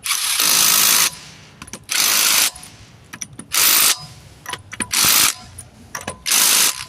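Power wrench running lug nuts onto a car wheel in five short bursts, each a buzzing half-second to one-second run with brief pauses between, snugging the nuts before they are torqued by hand.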